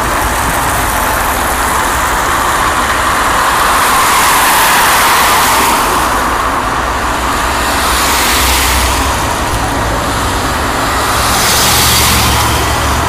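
Boeing 787 Dreamliner's two Rolls-Royce Trent 1000 turbofans at takeoff thrust during the takeoff roll: a loud, steady jet-engine noise with a low rumble, swelling slightly about four seconds in and again near the end.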